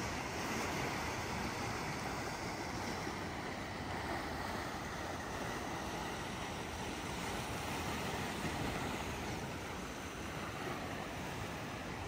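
Sea waves washing and wind, a steady rush that never breaks.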